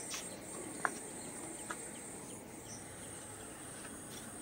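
Quiet background of insects, crickets by their steady high-pitched drone, with three faint light clicks in the first two seconds.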